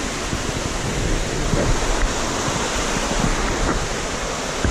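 Steady rushing of a waterfall, with wind buffeting the microphone.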